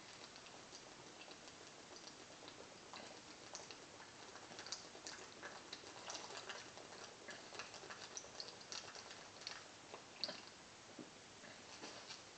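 Faint, irregular little clicks and gulps from chugging a 40-ounce glass bottle of malt liquor: swallowing, with air bubbling up into the upturned bottle, starting a couple of seconds in.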